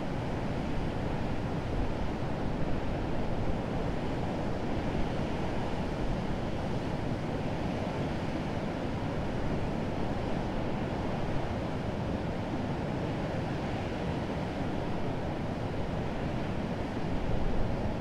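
Urriðafoss waterfall: a steady, dense rush of falling and churning white water, with wind gusting on the microphone.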